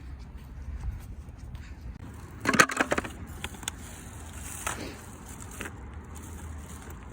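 Small electric remote control car (WLtoys 144001) driving over rough asphalt, its wheels and chassis rattling, with a loud clattering burst about two and a half seconds in and a short falling whine near the five-second mark.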